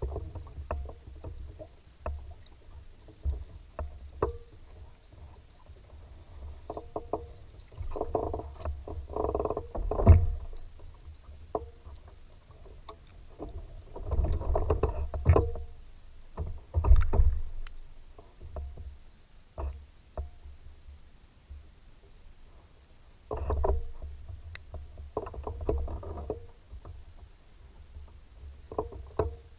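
Water slapping and sloshing against a fishing kayak's hull in irregular bursts, with scattered light knocks on the boat.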